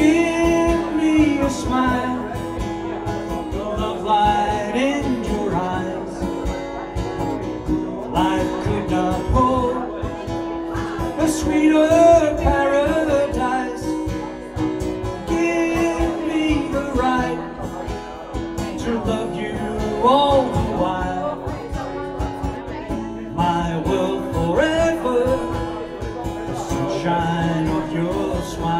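Live solo acoustic performance: strummed acoustic guitar with a man's voice carrying a wavering melody without clear words.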